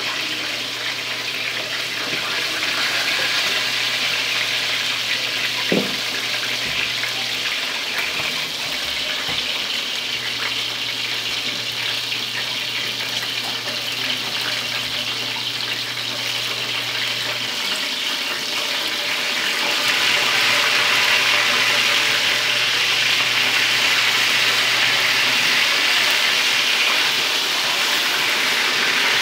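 Chicken pieces frying in oil in a shallow pan over a gas burner: a steady sizzle that grows louder about two-thirds of the way through.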